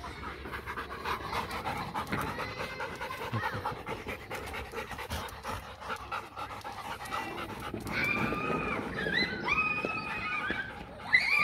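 German Shepherd-type dogs panting fast and hard from running at play. From about eight seconds in a dog whines in high, drawn-out notes, the last one short and louder.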